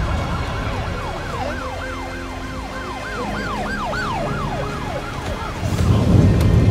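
Title-sequence sound design over a low steady drone: a siren-like tone rising and falling about four times a second, which fades out, then a deep rumble that swells up near the end.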